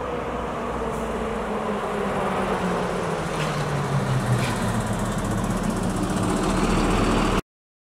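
Lorry driving past on the road over the bridge, its engine and tyres running amid passing traffic noise, with the engine hum strongest about four seconds in. The sound cuts off suddenly just before the end.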